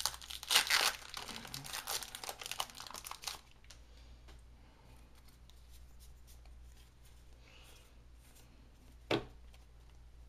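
Foil wrapper of a Magic: The Gathering booster pack being torn open and crinkled for about the first three and a half seconds. Then faint ticks of the cards being handled, and one sharp tap about nine seconds in.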